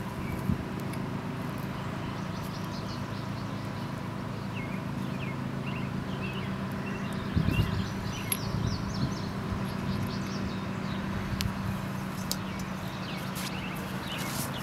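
A steady low machine hum, with birds chirping at intervals and a few faint clicks, and a brief rustle about halfway through.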